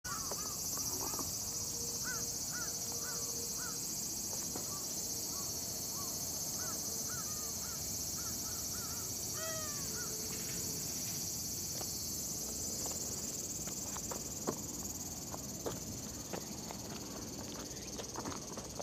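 A steady, high-pitched chorus of insects is the loudest sound. Over it a cat gives a run of short chirping meows through the first half, the loudest about halfway through. After that come a few soft clicks and taps.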